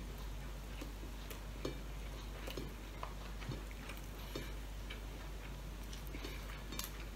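A person eating with his hands: irregular small clicks and smacks of chewing, and of fingers working rice and sausage on a plate, over a low steady hum.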